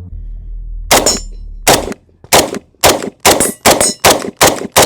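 IWI Tavor 7 bullpup rifle in .308 firing a rapid string of about nine semi-automatic shots, the pace quickening toward the end, with a high metallic ringing after several of them.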